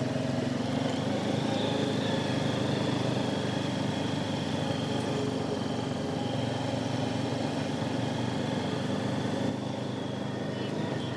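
ATV engine running steadily while riding along a dirt trail, its level easing off slightly near the end.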